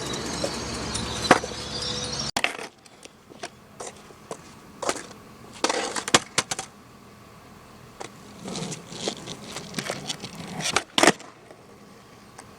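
Skateboard on pavement: a steady rolling hiss of the wheels that cuts off about two seconds in, then scattered sharp clacks and clatters of the board being popped, flipped and landing.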